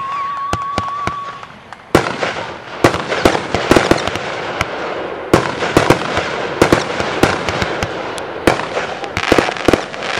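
Class C 1.4G consumer fireworks firing in a group show. A whistle rises and then holds one pitch for about a second and a half. From about two seconds in come rapid sharp bangs of aerial bursts, several a second, over a continuous hiss.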